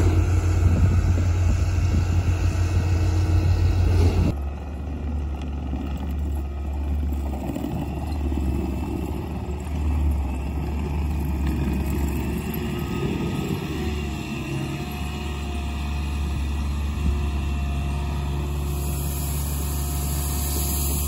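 Diesel engines of heavy construction machinery running in a steady low drone. About four seconds in, the sound changes abruptly to a quieter, steady engine drone.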